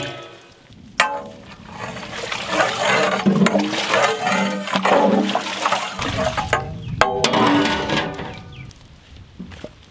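Water sloshing and pouring in a metal cooking vessel, with two sharp metallic clangs that ring on, one about a second in and one about seven seconds in.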